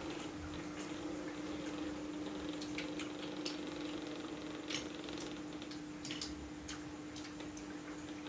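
Spoons clinking and scraping against bowls, with slurping and eating noises over soup, as short sharp clicks scattered irregularly. A steady low hum runs underneath.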